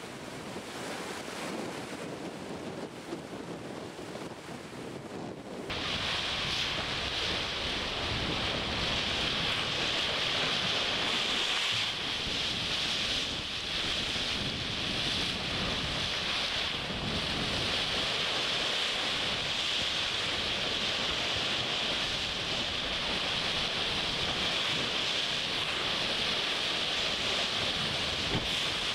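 Water rushing and spraying along the hull of an IMOCA 60 racing yacht under sail, with wind buffeting the microphone. About six seconds in the sound jumps to a louder, steadier hiss of water.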